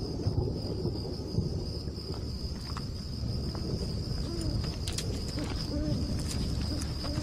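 Night-time ambience: a steady high insect trill over a low rumble, with a few soft low hoots in the second half.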